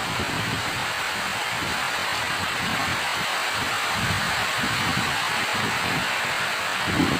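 Steady heavy rain falling, a dense even hiss with soft low thumps now and then.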